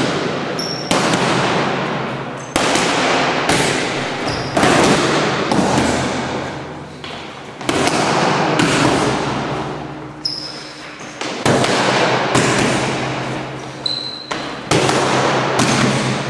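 Punches smacking into focus mitts at an irregular pace, about one every second or two, each hit ringing out with a long echo in a large hall. A few brief high squeaks come in between the hits.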